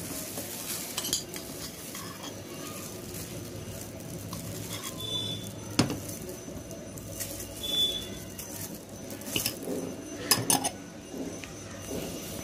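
Kitchen utensils clinking and knocking: a spoon and bowls handled over semolina and ghee in a plastic microwave bowl, with a few sharp knocks, the clearest about six seconds in and two more about ten seconds in.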